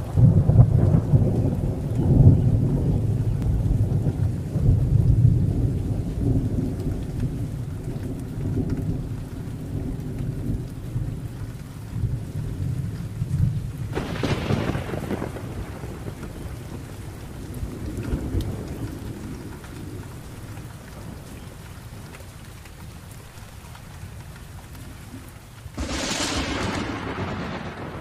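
Thunderstorm: thunder rumbling over steady rain. The rumble is loudest at the start and slowly fades, with a sharp thunderclap about halfway through and another near the end.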